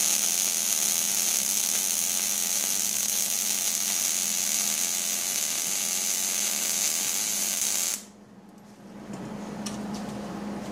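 MIG welding arc crackling steadily as a bead is run on steel, cutting off suddenly about eight seconds in, after which a much quieter hum remains.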